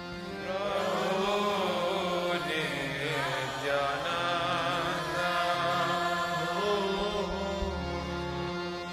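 Kirtan: devotional singing of a chant over a steady held instrumental drone.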